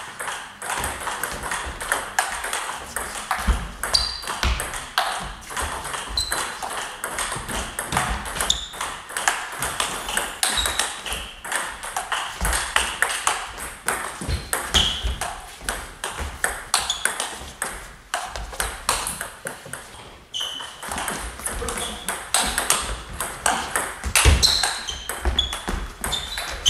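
Table tennis balls clicking off bats and the table in rallies, many rapid, overlapping clicks, with more clicks from games at neighbouring tables.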